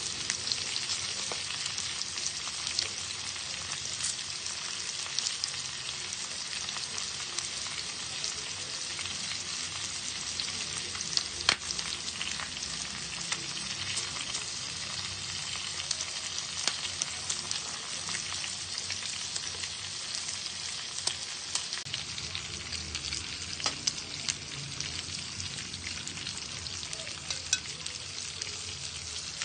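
Pork chop sizzling as it grills: a steady fat hiss scattered with sharp little pops and crackles, one louder pop about eleven seconds in.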